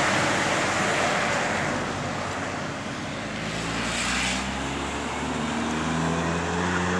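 A car driving past on asphalt, its tyre noise peaking about four seconds in. After that an engine hum slowly rises in pitch.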